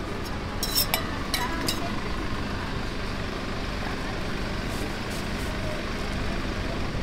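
Steady low rumble of street traffic, with a few sharp clinks about a second in.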